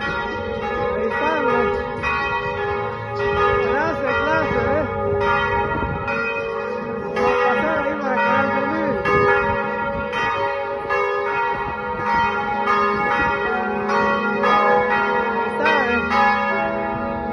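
Church bells ringing over and over, the strikes overlapping into a continuous peal.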